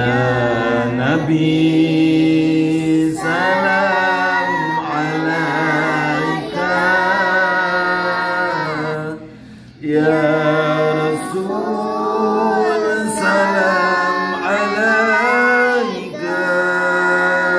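A man and a group of boys singing a Sundanese pupujian, a devotional chant, together in long drawn-out melodic phrases, with a short break about nine and a half seconds in.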